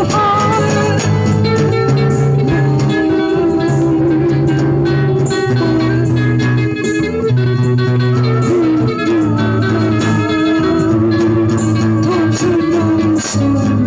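Instrumental music led by guitar over held bass notes that change every couple of seconds, with a wavering lead melody line.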